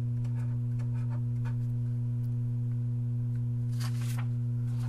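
Steady electrical hum, with faint scratching of a marker writing on paper during the first second or so, then a brief rustle of a paper sheet being slid away near the end.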